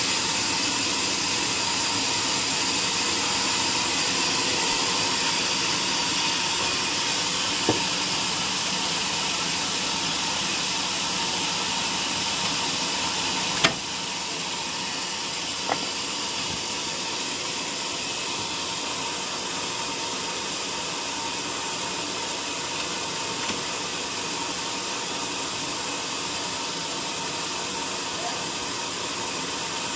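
Band sawmill machinery running steadily: an even hiss with a faint steady hum. One sharp knock comes about halfway through, after which the running sound is a little quieter, and a few lighter knocks follow.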